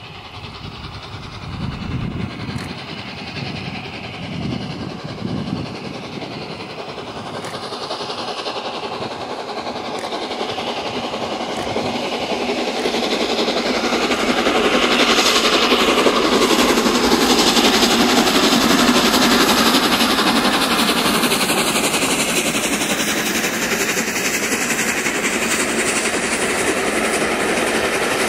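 Steam-hauled train approaching and passing close by: a few low exhaust beats from the locomotive in the first seconds, then the sound swells into the steady rumble and rattle of the train's wheels on the track, loudest from about halfway through.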